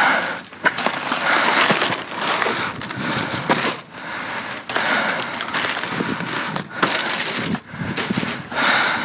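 Rummaging through trash in a metal dumpster: rustling and crinkling of plastic bags and cardboard boxes being handled, with scattered sharp knocks.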